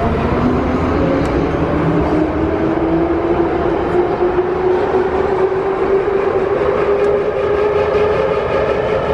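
Russian-built series 81 Warsaw Metro train (81-572/81-573 cars) running in the tunnel, heard from inside the carriage. A loud steady rumble lies under a whine that climbs steadily in pitch as the train gathers speed.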